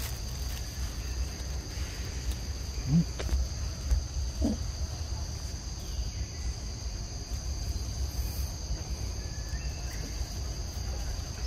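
Steady high-pitched drone of insects in the surrounding vegetation, unbroken throughout. A few brief low sounds come through about three and four and a half seconds in.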